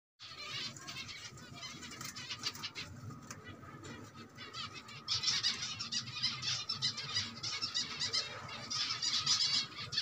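A large flock of zebra finches in an aviary calling: many short, overlapping chirps that grow louder from about five seconds in.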